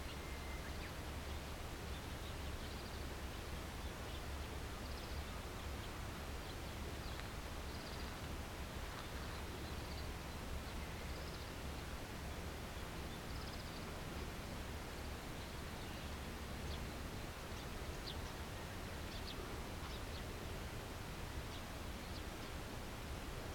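Outdoor ambience: a steady low rumble with faint, short bird chirps every second or two.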